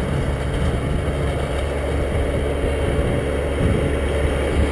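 Vehicle engine running steadily, its sound low-pitched and unchanging.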